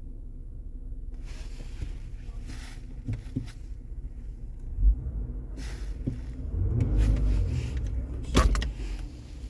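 Handling noises in a car: a low rumble with rustling, scattered clicks and knocks, a thump about halfway through and a sharp click near the end.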